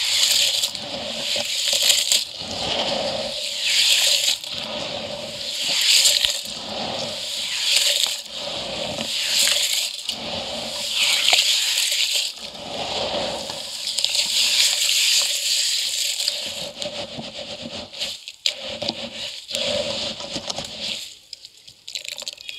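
Hands squishing and swirling wet crumbled concrete in water in a steel bucket, a gritty sloshing that swells about every two seconds. From about 17 seconds in it thins to scattered small drips and splats.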